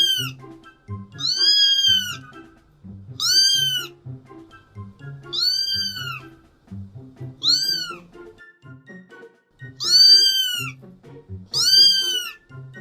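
A cat meowing six times, about every two seconds, each a high meow that rises and falls in pitch, over background music.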